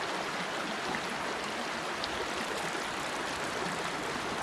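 Small rocky brook running over a shallow riffle: a steady rush of flowing water.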